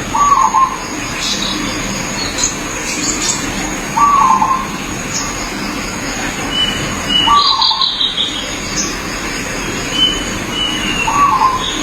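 Zebra dove (perkutut) calling in short cooing phrases, four times at a regular pace a few seconds apart, while other small birds chirp higher up in the background.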